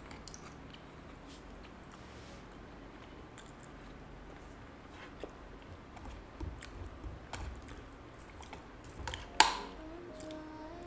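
Soft close-up eating sounds of ice cream taken with a plastic spoon: quiet mouth and chewing noises and small spoon clicks against the cup. One sharp click near the end.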